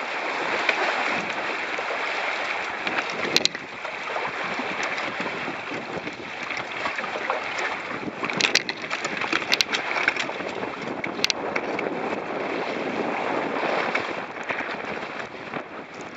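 Wind buffeting the microphone and water rushing along the hull of a Hobie catamaran under sail, a steady loud hiss, with a few sharp clicks about three and a half, eight and a half, nine and a half and eleven seconds in.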